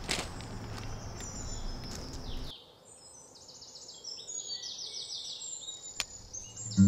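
Outdoor ambience: a steady noise with a low hum cuts off abruptly about two and a half seconds in, giving way to a quieter background with rapid high-pitched chirping. Near the end a single sharp snap sounds as a thin object is broken in two by hand.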